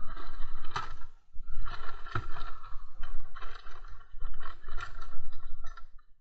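Handling noise in a car's open boot: scraping and rustling as the camera rubs against the felt-covered parcel shelf, with two sharp knocks, about one and two seconds in.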